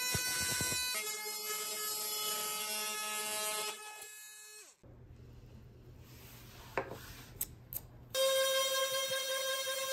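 Milwaukee FUEL brushless oscillating multi-tool running with a steady high buzz as its blade plunge-cuts into a block of hardwood, then spinning down about four seconds in. After a quieter stretch with a few light clicks, the multi-tool starts up again at full buzz about eight seconds in.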